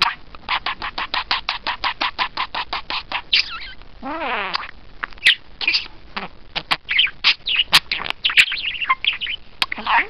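Budgerigar chattering: a fast run of short chirps, about seven a second, for the first three seconds, then a warbling call and a busy mix of chirps and clicks.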